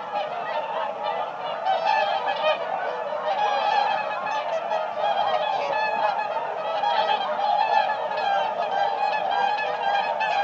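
A flock of swans calling together: a dense, steady chorus of many short calls overlapping one another without a break.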